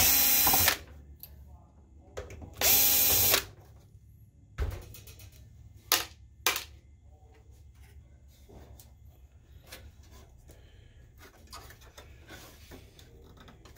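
Cordless drill-driver spinning out two chassis screws in two short bursts, about two and a half seconds apart, followed by a few light clicks.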